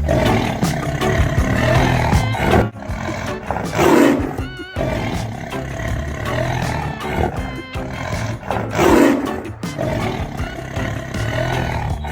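Lion roars, two of them, about four seconds in and again near nine seconds, over background music.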